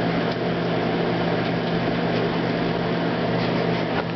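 Microwave oven running, a steady mains hum as it heats a mug of milk.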